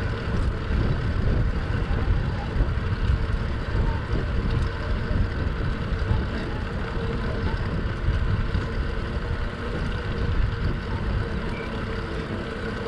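A moving vehicle running steadily: a low rumble with a faint engine hum.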